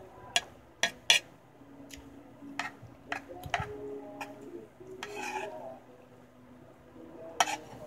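A metal spoon clinking and scraping against a plate of rice in a series of sharp, irregular clicks, the loudest about a second in and near the end.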